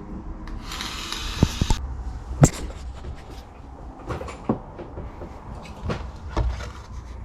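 Handling noise: a rasping rustle lasting about a second near the start, then scattered sharp knocks and clicks as a plastic Lexan RC car body is handled.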